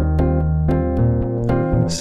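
Instrumental bar of a slow song between sung lines: guitar picking about four notes a second over sustained double bass notes.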